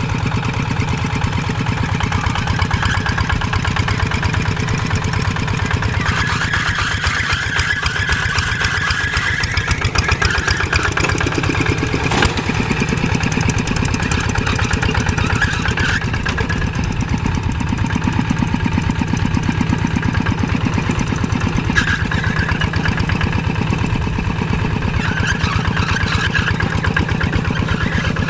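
An old tractor engine running steadily with an even, rapid pulse. There is a sharp knock about twelve seconds in and another about twenty-two seconds in.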